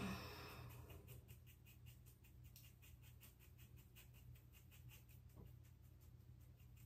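Faint, quick snips of scissors, several a second, growing fainter as they go.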